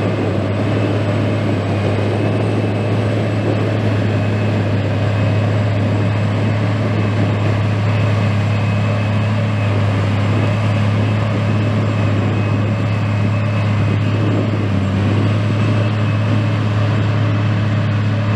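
John Deere 8800i self-propelled forage harvester working under load, chopping grass and blowing it out of its spout into a trailer. A steady, loud deep drone with a thin high whine over it.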